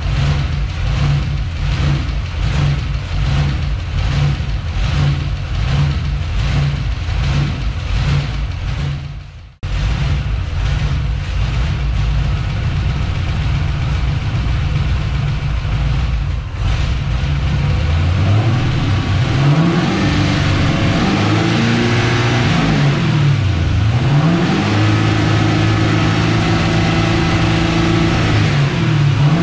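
Cadillac CTS-V's freshly rebuilt LS-family V8 idling with an even pulse about twice a second, broken by a brief drop-out about a third of the way through. In the last third it is revved up and down several times and then held at a raised speed.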